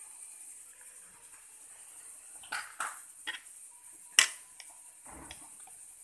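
A steel spoon clinking and tapping against a mixing bowl as ginger-garlic paste is spooned into ghee: a few short sharp clicks, the loudest about four seconds in.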